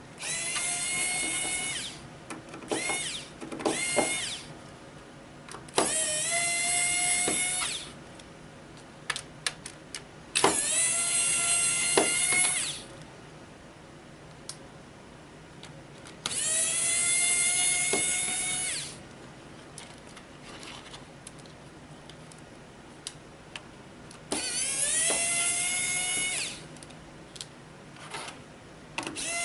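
Electric screwdriver backing out small screws from a laptop screen frame: about seven separate runs of motor whine, each climbing quickly in pitch as it spins up and then holding steady for one to two seconds, with small clicks in the pauses between screws.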